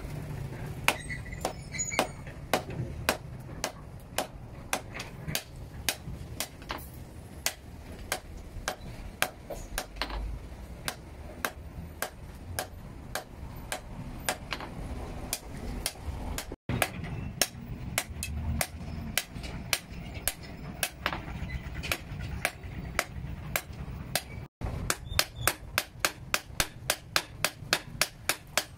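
Hand hammers striking a red-hot steel blade cut from a chainsaw bar on an anvil, forging it into a cane-cutting knife: a run of sharp ringing blows. Near the end two hammers strike in turn in a fast, even rhythm, about three blows a second.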